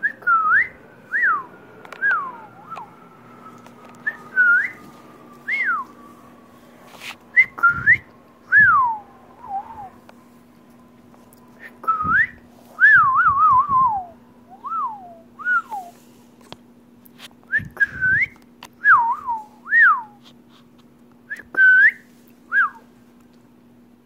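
Cockatiel whistling a string of short, clear notes that swoop up and down in pitch, coming in bunches with brief pauses. A faint steady low hum and a few soft knocks lie underneath.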